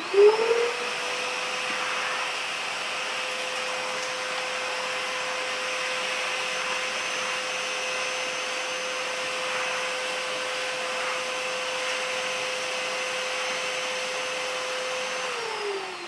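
2B 18-litre wet and dry vacuum cleaner switched on, its motor spinning up to a steady whine and running evenly as the floor broom attachment sucks up the remaining dust. It is switched off about fifteen seconds in and winds down.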